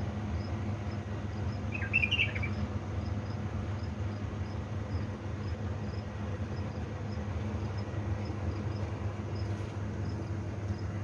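A pet bulbul gives one short chirp about two seconds in, over a steady low hum. Faint, evenly spaced high ticks run underneath.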